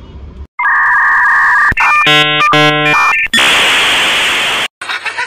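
Loud sound effects edited in over the footage: a steady two-note electronic beep, a short click, two pulses of a buzzy alarm-like tone, then a burst of hiss that cuts off abruptly, followed by crackling clicks.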